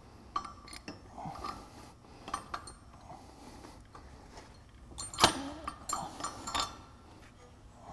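Metal clinking and knocking as an electric actuator is fitted onto its steel frame mount and the bolt worked into place. Scattered light clicks, with a sharper clank about five seconds in that is the loudest, and a couple more soon after.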